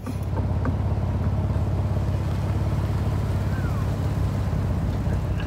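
An engine running steadily, a low even drone with a fast regular pulse.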